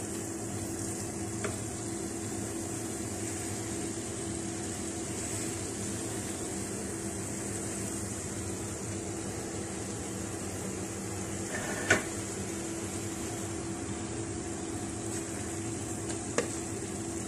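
Onion-tomato masala sizzling gently in a nonstick pan over a steady low hum, with a few sharp clicks of a wooden spatula against the pan, the loudest about twelve seconds in.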